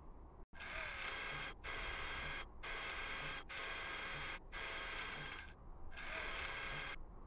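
Whirring of the Curiosity rover's robotic arm motors as a sound effect, running in short spurts of about a second, each cut off by a brief sudden stop.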